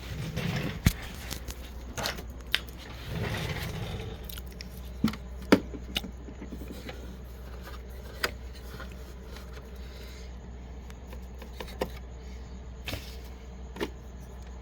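Handling noise from a folded paper towel being worked in and around an inkjet printer: scattered small clicks and taps, with brief paper rustling near the start and again about three seconds in.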